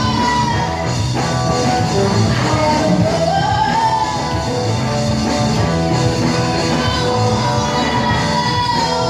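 A live band playing with a lead singer into a microphone, backed by electric bass, guitar and drums.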